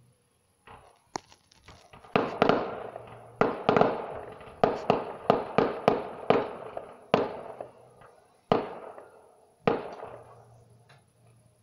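Distant fireworks display: a rapid volley of sharp bangs, each trailing off in an echo. The volley thins out to two spaced bangs and a few weaker pops near the end.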